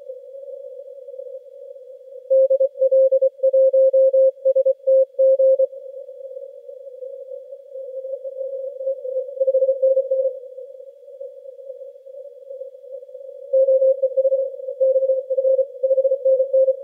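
Morse code (CW) received on the 80-metre band through a Yaesu FTdx10 transceiver: one mid-pitched tone keyed in dots and dashes over a narrow band of filtered hiss. A strong signal sends about two seconds in and again near the end, with a weaker signal keying in between.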